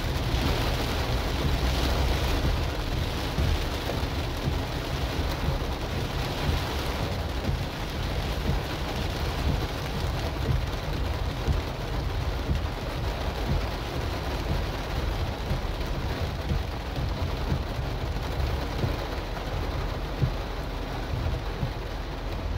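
Steady rain drumming on a car's roof and windshield, heard from inside the cabin, over a low steady rumble. The hiss is a little stronger in the first several seconds.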